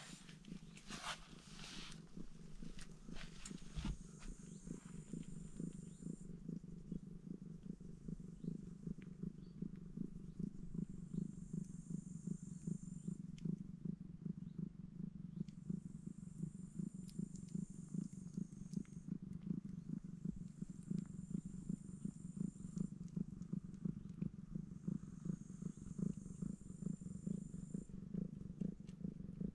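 Domestic cat purring steadily, close up: a continuous low purr with fine rapid pulses.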